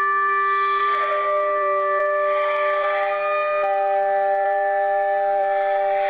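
Electronic emergency-alert attention tone: several steady tones held together as a chord, with new notes entering about a second in and again midway, under a wash of noise that swells every couple of seconds.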